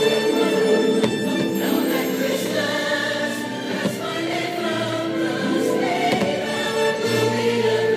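Choir singing Christmas music over orchestral backing, the soundtrack of a fireworks show, in long held chords that change every second or so.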